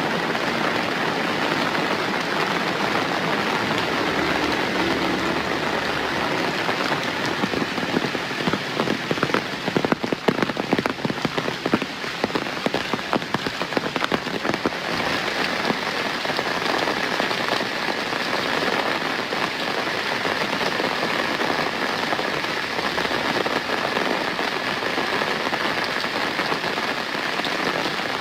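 Steady rain falling and pattering on surfaces, with a spell of louder, closer drop hits about ten seconds in that lasts a few seconds.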